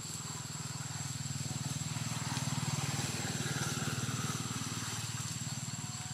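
A motor vehicle engine running nearby, a steady low rumble with rapid even pulsing that swells slightly around the middle, over a hiss and a thin steady high whine.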